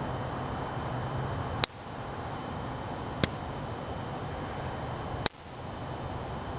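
Steady hiss with a faint high whine, broken by three sharp clicks about a second and a half to two seconds apart, the loudest sounds; after the first and last click the hiss drops away for a moment and then comes back.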